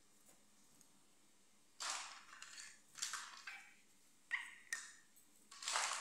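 Crinkling and rustling of plastic packaging as a small plastic toy is unwrapped and handled, in several short bursts starting about two seconds in.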